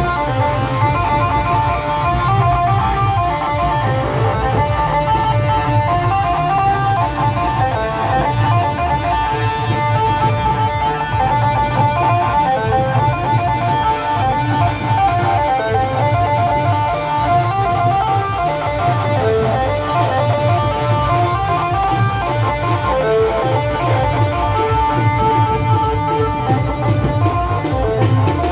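Timli band music playing loud and without a break: a repeating melody line over a steady low beat.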